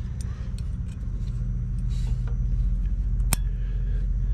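Light metallic ticks and taps of brake pad hardware clips being handled and fitted into a caliper bracket, with one sharp click a little past three seconds in. Under them runs a steady low hum.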